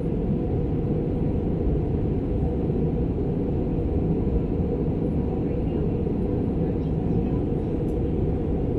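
Steady cabin roar of an Airbus A320 in flight: engine and airflow noise heard from a passenger seat, a deep, even rumble.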